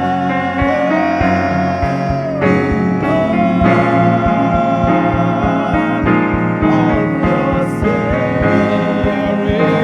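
Worship band playing: sustained keyboard chords over a steady kick-drum beat, with a melody line sliding in pitch above, likely a voice singing without clear words.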